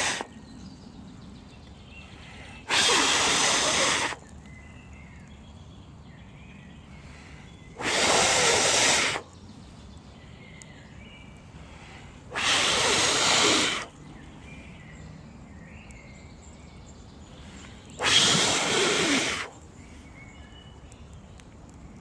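A person blowing hard onto the smouldering embers of a small damp-wood fire to revive it: four long blows, each about a second and a half, several seconds apart. This brings the fire back to flame.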